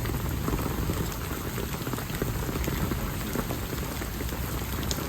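Heavy rain falling: a dense, steady spatter of drops.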